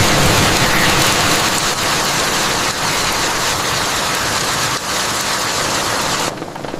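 Heavy rain falling in a steady, dense hiss. It drops suddenly to a softer level near the end.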